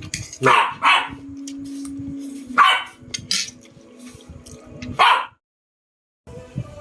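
A dog barking, about four short barks, over a low steady hum. The sound cuts out completely for about a second near the end.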